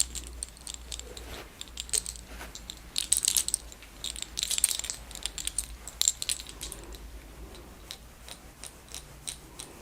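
Hands working through hair in a scalp massage, making a run of short, irregular clicks and crackles in small clusters.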